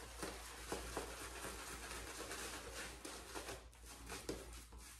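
Large synthetic shaving brush swirling shave-soap lather on a face: faint, irregular soft swishing and squishing strokes.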